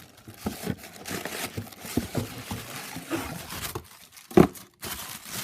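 Toy packaging being crinkled and torn open by hand, with irregular rustling and small clicks of plastic pieces being handled. A single louder knock comes about four seconds in.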